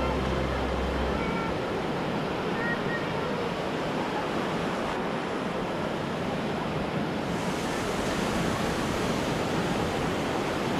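Ocean surf: a steady, even wash of breaking waves. A low hum underneath stops about a second in.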